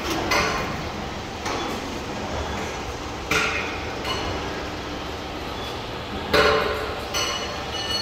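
Steady machine-shop background noise with a handful of sharp metallic clanks and knocks at irregular intervals, each ringing briefly. The loudest comes about six and a half seconds in.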